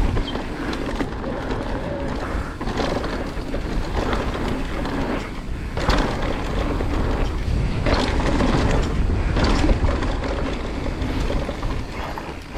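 2020 Specialized Turbo Levo electric mountain bike descending a rough, steep downhill trail: tyres rolling over dirt and rocks, with sharp knocks from impacts on the bike and wind buffeting the microphone.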